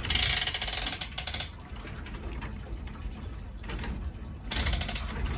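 Wort streaming and splashing back into a stainless brew kettle as a brew-in-a-bag grain bag is hoisted out to drain. It is heavier for the first second or so and again near the end, with a steadier trickle between.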